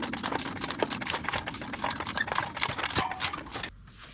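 Rapid, irregular metallic clicking and rattling from hand tools being worked, stopping suddenly near the end.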